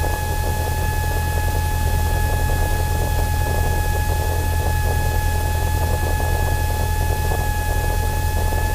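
Cessna Skylane's single piston engine and propeller droning steadily in the cabin during cruise, with a steady high whine running over the drone.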